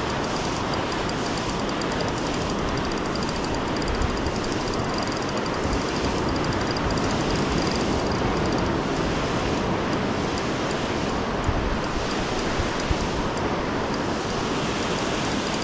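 Steady rush of surf on the beach, mixed with wind noise.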